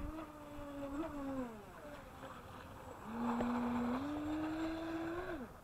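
Atomik Barbwire 17 RC boat's electric motor on a 3-cell LiPo, whining under throttle. The pitch dips and falls away at about a second and a half, climbs back from about three seconds in at its loudest, then cuts off sharply near the end as the throttle is released.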